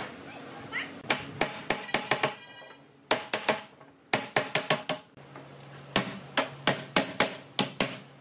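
Wooden mallet knocking on a solid-wood desktop to seat it on its cabinet frame. The knocks come in several runs of quick strokes, about four a second, with short pauses between.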